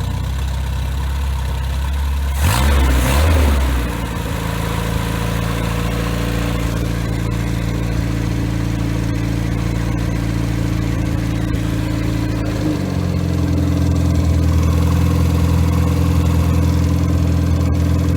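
Freshly rebuilt Triumph Spitfire 1500 inline-four engine running. It is revved briefly about two and a half seconds in, then settles to a steady low idle of about 800 rpm.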